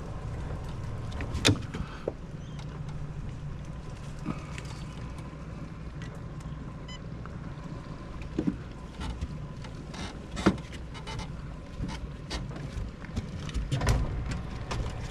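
Fishing drone flying with a crab pot slung beneath it, its motors giving a steady low hum, with a few short clicks along the way.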